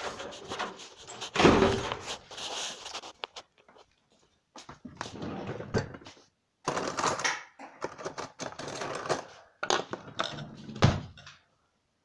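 Irregular handling noise: knocks, clunks and rubbing against the phone, with the sound cutting out completely several times.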